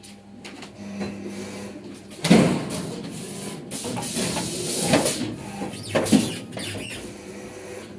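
WIRESTAR PB-580S automatic calendar punching and wire-binding machine running through its cycle. A low steady hum, then from about two seconds in several seconds of loud, noisy mechanical clatter, with sharp strokes about two, five and six seconds in.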